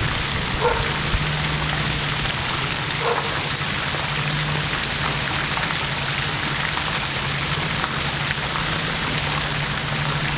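Steady rush of splashing water, with a low steady hum underneath.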